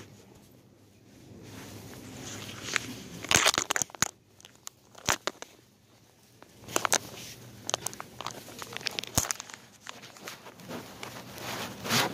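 Irregular rustling and crinkling with sharp clicks: handling noise of a phone rubbing against clothing.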